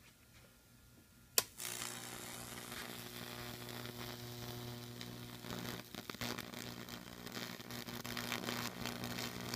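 A sharp snap about a second and a half in, then a microwave-oven transformer's steady mains buzz as its 2 kV output arcs and burns a path across plywood between two electrodes, with crackling and sizzling from the burning wood that grows busier in the second half.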